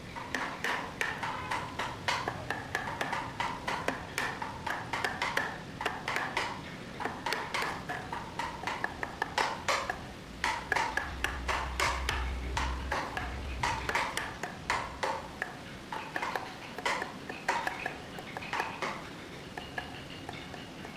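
Irregular metallic taps and clinks, several a second, some leaving a short ring.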